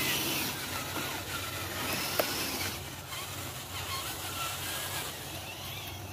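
Electric motor and gearbox of a radio-controlled dump truck whining as it drives loaded, the pitch rising and falling with the throttle, with a sharp click about two seconds in.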